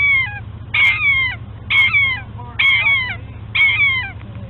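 Puppy crying in repeated high yelps, about one a second, each a short cry that falls in pitch.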